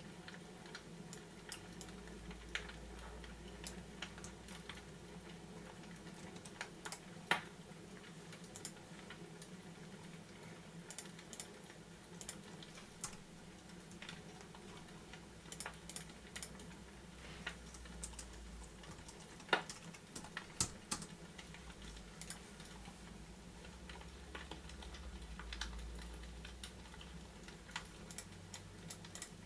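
Fireplace crackling: scattered, irregular clicks with a few louder pops, over a low steady hum.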